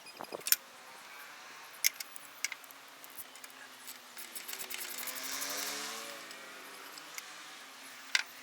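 A few sharp metallic clicks and clinks of hand tools against metal during engine disassembly, with a vehicle engine passing in the background from about four seconds in, swelling and fading.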